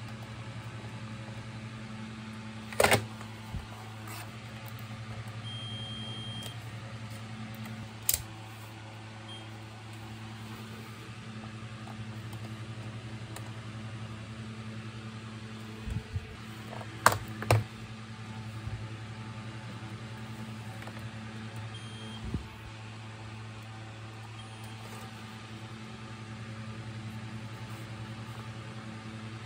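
A low steady hum with a few sharp clicks and knocks as multimeter probes and plastic vacuum-cleaner parts are handled. Short high multimeter beeps sound a few times, the longest about a second.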